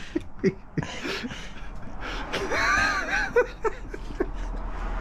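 Small clicks and taps of a screwdriver working at a small plastic switch, then a wheezing, whining vocal sound lasting about a second in the middle.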